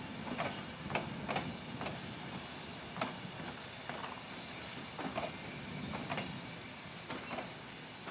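Vintage wooden railway passenger carriages rolling slowly away on jointed track: irregular clicks and clunks from the wheels and couplings over a low rumble.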